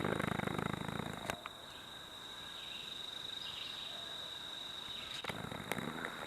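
A steady high-pitched insect drone, with rustling for about the first second and a few sharp clicks near the end.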